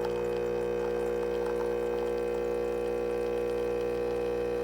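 Neretva 20-bar espresso machine's pump running with a steady hum while it brews a shot.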